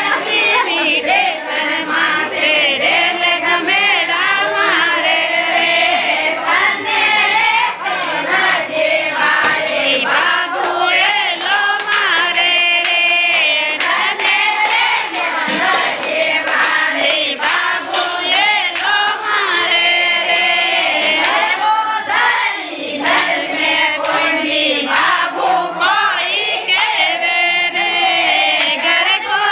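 A group of women singing a Marwari gaali folk song together, with hand clapping keeping time.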